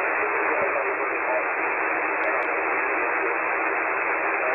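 Lower-sideband shortwave receiver audio from a KiwiSDR on the 40 m ham band: a steady hiss of band noise, thin and cut off sharply at the top, with a weak voice faintly under it. Two faint clicks about two seconds in.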